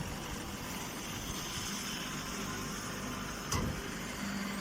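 Automatic alfalfa baler running steadily, with one sharp knock about three and a half seconds in.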